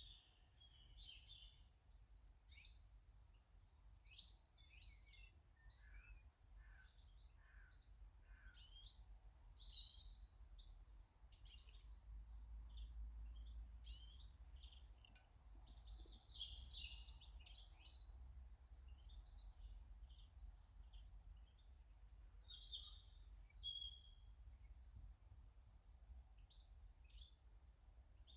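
Small garden birds chirping and twittering, faint, with many short calls scattered throughout.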